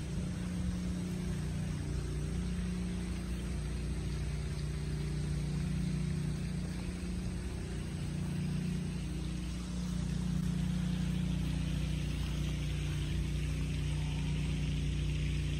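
A motor running steadily at an even pitch, with a hiss that grows louder from about ten seconds in.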